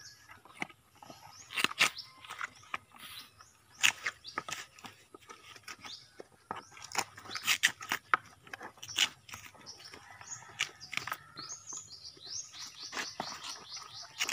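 Knife blades prying and scraping coconut meat out of split coconut halves: irregular sharp clicks and cracks. Birds chirp, with a quick run of high chirps near the end.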